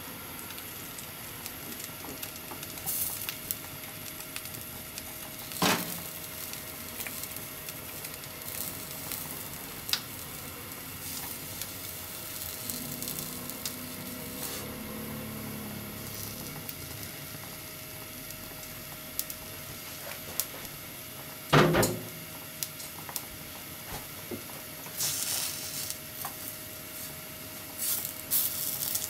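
Flour-coated pork slices sizzling as they are laid into a hot non-stick frying pan, the sizzle rising in hissy surges that are strongest near the end. Two sharp knocks stand out, the louder about three quarters of the way in, over a faint steady hum.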